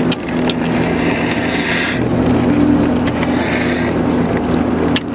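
A vehicle engine running steadily, its note shifting slightly about two seconds in, with two stretches of hissing noise over it.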